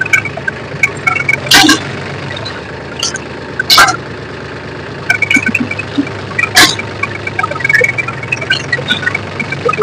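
Powertrac 439DS tractor's diesel engine running steadily during a test drive in which the right-side dry brake drags even with the pedal released. Three sharp knocks, about one and a half, four and six and a half seconds in, stand out over the engine.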